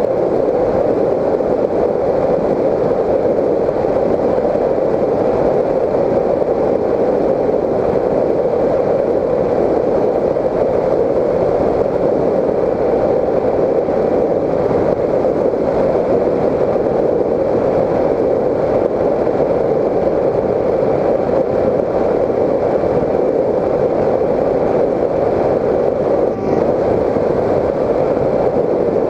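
Steady, muffled drone of a Raptor 1600 FPV model plane in flight, its stock electric motor and propeller running with the rush of airflow, heard from the onboard camera inside its housing. There is one brief dip near the end.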